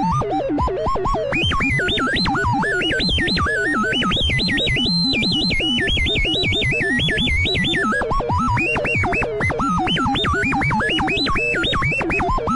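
Synthesized robot chatter: fast strings of electronic chirps and beeps that leap and glide up and down in pitch several times a second, R2-D2-style, over a steady low hum.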